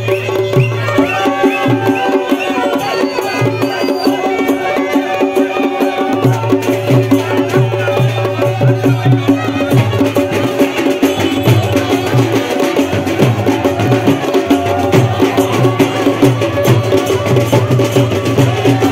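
Traditional chholiya wedding band playing: drums beating a steady rhythm under held drone notes and a wavering melody. The drums come and go in the first few seconds, then beat steadily from about six seconds in.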